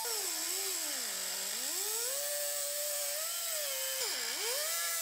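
Pneumatic die grinder with a small cut-off wheel cutting through a car's sheet-metal body panel. Its high whine drops in pitch as the wheel bogs into the metal, about a second in and again around four seconds, then climbs back, over a steady hiss.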